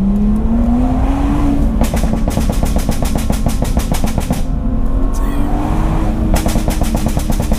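BMW M2's remapped turbocharged straight-six accelerating with a rising note, then the exhaust firing rapid strings of pops and bangs on lift-off, like machine-gun fire. This happens twice, heard from inside the cabin. The crackle comes from a remap done specifically for pops and bangs.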